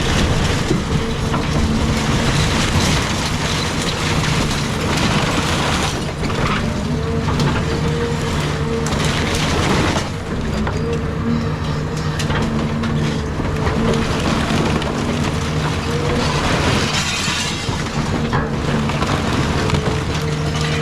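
Caterpillar 323 excavator's diesel engine running steadily under work, with wood and debris of a house cracking, breaking and crashing throughout as the machine tears it down.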